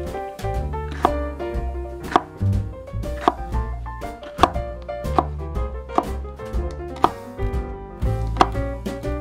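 Chef's knife slicing a red bell pepper into strips on a wooden cutting board. Each stroke ends in a sharp knock of the blade on the board, about one a second, over background music.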